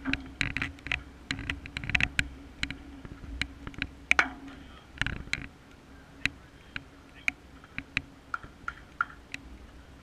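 Sharp clicks and taps at irregular intervals over a steady low hum, with the loudest pair of clicks about four seconds in.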